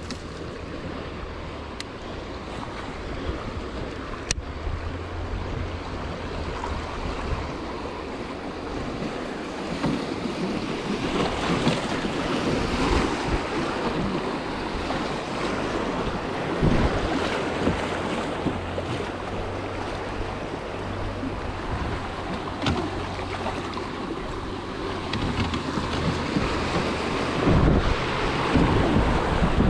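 Fast river water rushing through a riffle and splashing around a kayak's hull, getting louder about a third of the way in as the boat runs the rough water, with wind buffeting the microphone.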